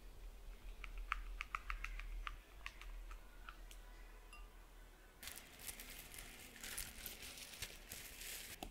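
Silicone spatula mixing batter with melted chocolate in a glass bowl: a run of light clicks and taps against the glass in the first few seconds. From about halfway there is a longer, denser hissy rustle.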